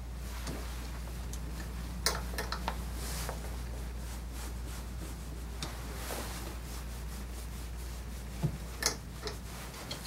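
A towel rubbing over a wet dog's coat, with a few sharp clicks and knocks around 2 seconds in and again near the end, over a steady low hum.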